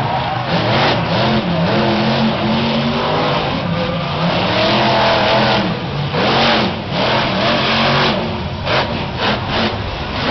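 Monster truck engine revving hard, its pitch rising and falling again and again as the truck drives over the arena obstacles. There are a few sharp knocks near the end.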